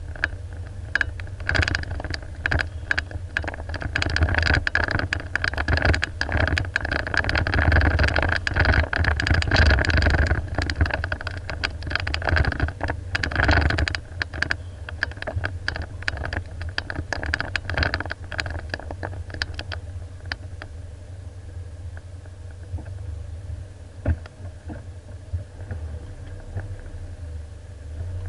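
Four-wheel-drive's engine running low and steady, heard inside the cabin, with frequent rattles and knocks as the vehicle bounces over a rough dirt track. The rattling thins out and the sound quietens in the last third as the vehicle slows to a stop.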